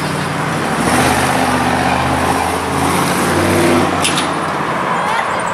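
Engine of a 1940s hot-rod pickup truck running as it drives by, with a deep, low rumble whose pitch lifts a little in places as it pulls.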